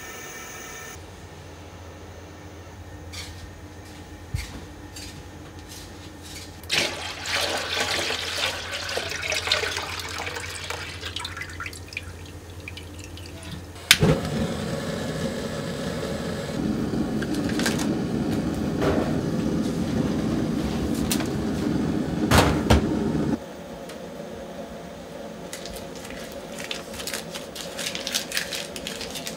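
Liquid pouring into a large aluminium stockpot, then a sharp click as the gas burner's knob is turned and the burner gives a loud, steady rush of flame for about nine seconds before cutting off suddenly.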